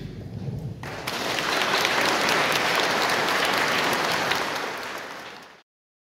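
Audience applauding at the end of a song, starting about a second in, then fading and cutting off abruptly near the end.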